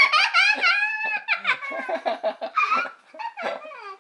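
A girl's high-pitched nervous laughter and squeals, with sliding, wavering cries in quick broken bursts.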